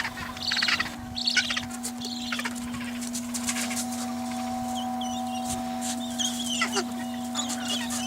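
Gentoo penguin colony calling: harsh, repeated clucking calls in the first couple of seconds, then thinner, high squeaky calls. A steady low hum runs underneath.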